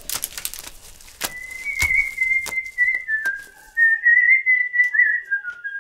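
Someone whistling a tune, a single clear line that starts about a second in and carries on. Under its start come dry clicks and rattles of maize kernels being rubbed off a dried cob by hand.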